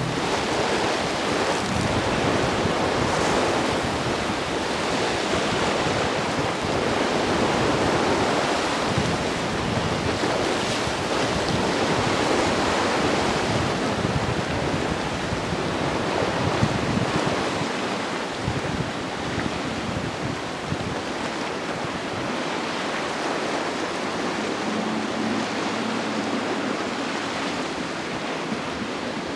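Surf and breaking waves rushing steadily, with wind buffeting the microphone.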